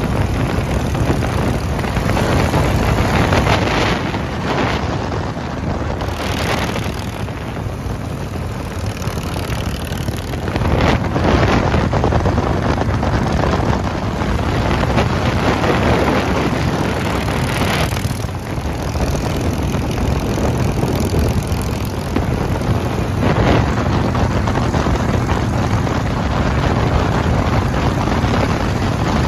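Harley-Davidson V-twin motorcycles running at highway speed in a group, their engines mixed with heavy wind buffeting on the microphone that swells louder several times.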